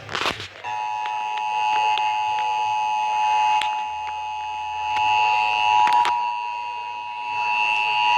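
Emergency Alert System attention signal: the steady two-tone alert (853 and 960 Hz) sounding over broadcast radio. It begins about a second in, just after a short loud crack, and it announces the National Periodic Test of the Emergency Alert System.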